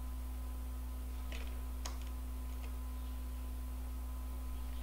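Steady low electrical hum with a few faint computer mouse clicks, two of them about a second and a half and two seconds in.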